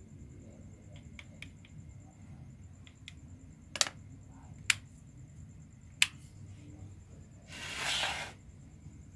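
Small clicks, then three sharp clicks of parts and tools being handled, followed by a hiss lasting about a second.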